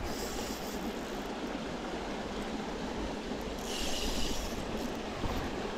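Steady rushing of flowing river water. A brief, higher hiss comes about four seconds in.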